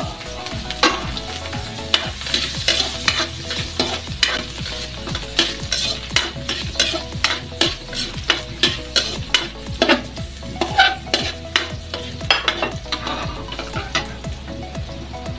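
Chopped garlic sizzling in hot oil and margarine in a steel wok, stirred with a metal ladle that clicks and scrapes against the pan many times.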